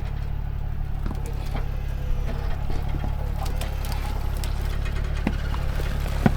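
Truck engine running steadily with a low hum, with scattered light clicks and knocks and one sharper knock near the end.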